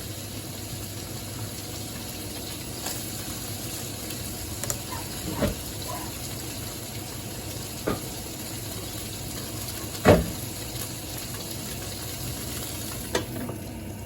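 Frying pan sizzling steadily, with a handful of short clinks and knocks of a utensil against the pan, the loudest about ten seconds in.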